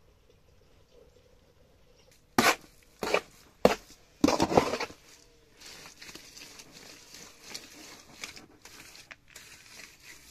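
Wet fibre-and-earth lime plaster (calfitice) being mixed in a plastic tub. After a quiet start come four loud scraping strokes through the mix, then lighter, steady scraping of a trowel stirring it.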